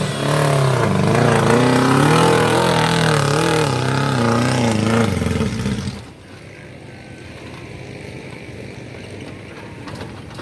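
Off-road 4x4's engine revving up and down in quick waves, then dropping away sharply about six seconds in, leaving a much quieter steady noise.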